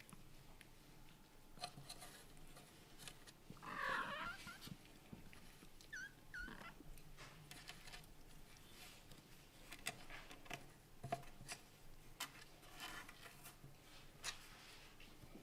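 A Scottish Fold–British Shorthair kitten calls out once about four seconds in, then gives two short high squeaks around six seconds, over faint scattered taps.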